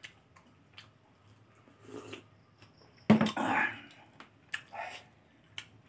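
Close-up eating sounds of a person eating rice by hand: scattered soft mouth clicks and smacks, with one louder, breathy sound about three seconds in.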